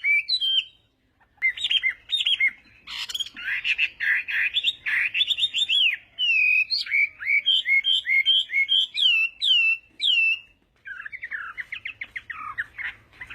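Chinese hwamei singing a loud, fast, varied song of rising and falling whistles and quick trills. It breaks off briefly about a second in and again near ten seconds.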